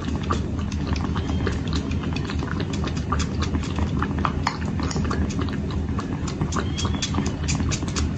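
Two kittens suckling milk through silicone pacifier nipples on a feeding bowl: an irregular run of wet sucking and smacking clicks, several a second, with a steady low hum underneath.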